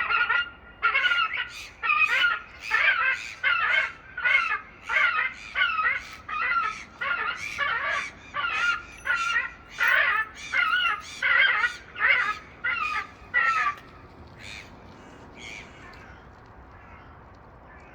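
Gull alarm calls: a long run of loud, wavering cries, about one and a half a second, stopping about 14 seconds in.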